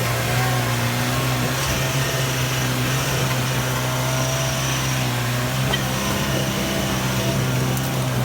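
Mahindra MM550 jeep's engine running at a steady pitch as it climbs a steep off-road slope.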